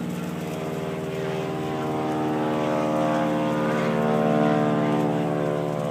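A steady engine drone, growing somewhat louder towards the middle.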